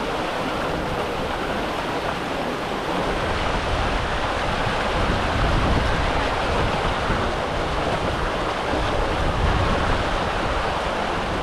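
Steady rushing water: a continuous even wash of noise with no breaks.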